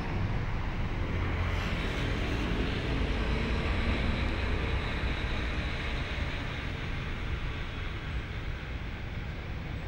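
Traffic noise: a vehicle goes past, building for the first few seconds and fading away over a steady low rumble.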